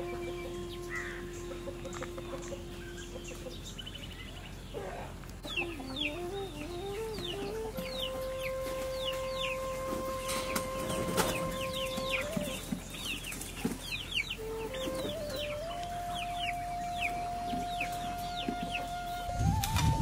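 Chickens clucking, with many short high chirps, over soft background music of long held notes that step up and down. A loud low thump comes at the very end.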